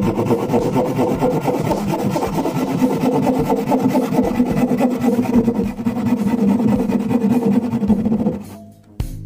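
Fine-toothed handsaw cutting across solid ash by hand: continuous sawing strokes that stop shortly before the end. Music plays underneath.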